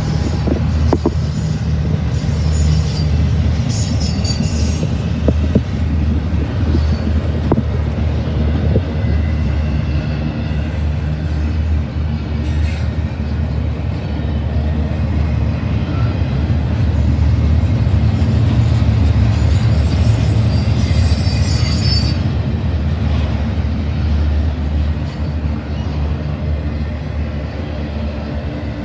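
Double-stack intermodal freight train rolling past close by: a steady rumble of steel wheels on the rails, with brief high-pitched wheel squeals about three seconds in and again about twenty seconds in.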